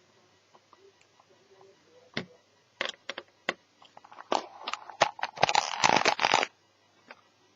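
Parts of an Asus Eee PC netbook being handled during disassembly: a few sharp clicks, then about two seconds of dense clattering and scraping of hard parts.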